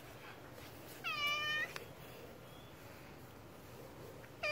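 A domestic cat meowing. One meow lasts about half a second starting about a second in, and a second meow begins at the very end.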